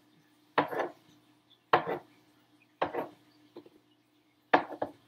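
Kitchen knife cutting through button mushrooms and knocking on a plastic cutting board: four cuts about a second apart, each a sharp knock with a short softer tap or scrape after it.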